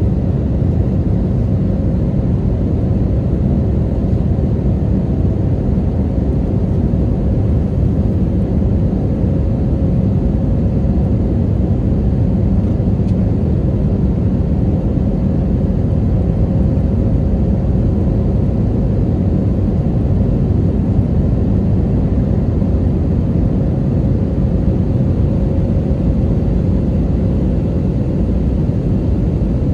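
Steady jet airliner cabin noise: an even rumble of the engines and airflow, with a faint steady hum running through it.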